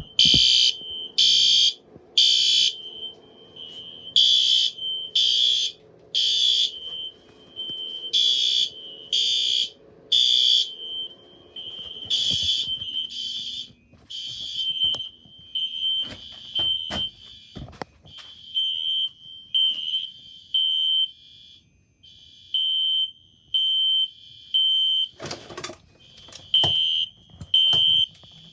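Several fire alarm horns sounding at once during a test: loud, high-pitched blasts in groups of three with a pause between groups (the temporal-three evacuation code), over another horn's steadier tone at about the same pitch. About halfway through, the blasts turn shorter and fainter, and a few knocks come in, one louder near the end.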